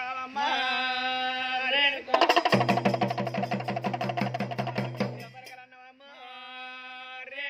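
A man singing a devotional chant in long held notes, broken about two seconds in by a fast burst of drum and cymbal beats lasting about three seconds, after which the singing resumes.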